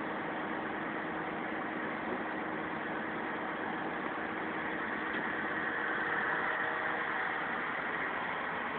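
Kato mobile crane's diesel engine idling steadily, growing a little louder about six seconds in.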